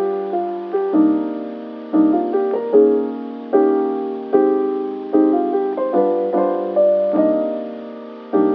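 Background music: soft piano chords struck about once a second, each fading before the next.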